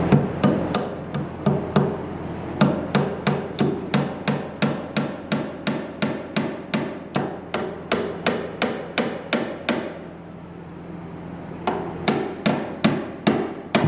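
A hammer striking steadily, about three blows a second, with a pause of about two seconds near the end before the blows resume.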